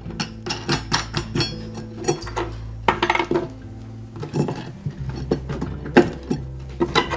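Small steel hardware clinking: washers, lock washers and hex nuts being handled and threaded by hand onto 1/4-20 bolts through a galvanized metal bracket. Irregular sharp clicks and clinks, several a second, loudest about three seconds in and again near six seconds.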